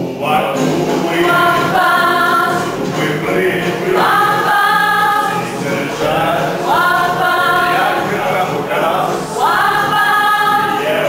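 A group of voices singing a song together in chorus, with a new sung phrase starting every two or three seconds.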